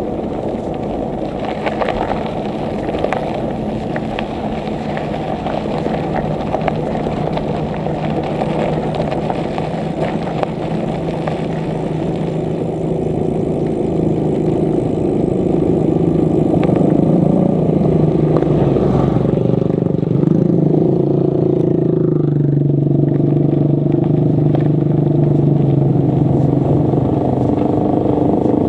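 Road and wind noise from riding on a road, with scattered light rattles in the first half. From around the middle a motor engine joins in and runs steadily, growing louder.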